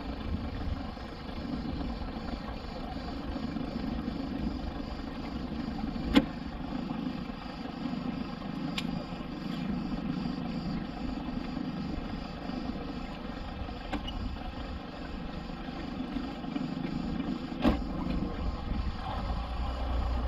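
Small fishing boat's engine running steadily with a low rumble. A few sharp knocks stand out, the loudest about six seconds in and another near the end.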